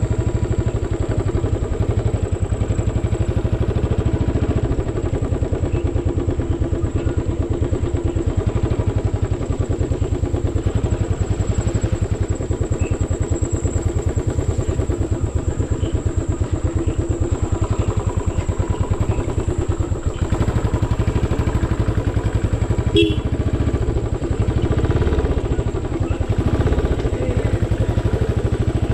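Royal Enfield motorcycle engine running steadily, its exhaust making a fast, even beat. A single sharp click cuts through late on.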